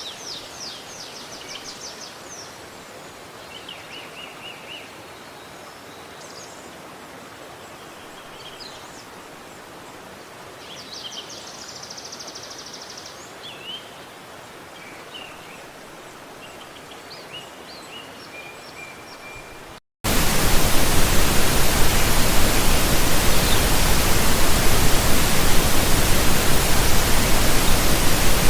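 Songbirds chirping and trilling over a faint hiss, including a rapid run of repeated notes about 11 seconds in. About two-thirds of the way through, the sound cuts abruptly to a loud, steady rush of falling water that fills everything.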